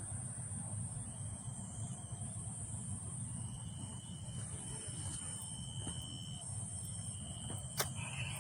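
Crickets chirring steadily at night. A thin, steady high whine joins them about a second in and holds. A single sharp click comes near the end.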